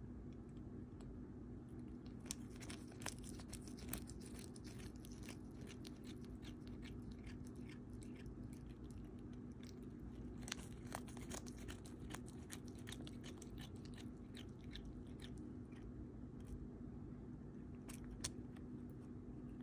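Cat biting and chewing a crisp romaine lettuce leaf: quick runs of crunching bites a couple of seconds in and again about halfway through, with a single bite near the end. A faint steady hum lies underneath.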